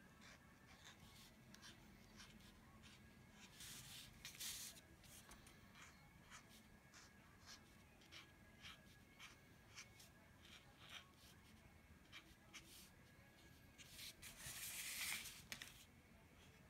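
Faint scratching of a fine-tip marker drawing short strokes on card, many small ticks as each leaf is drawn, with two longer scratchy passes about four seconds in and about fifteen seconds in.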